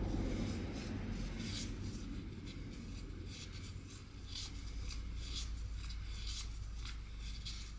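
Small metal parts being handled and a bolt turned in by hand: irregular light scratches, clicks and rubs.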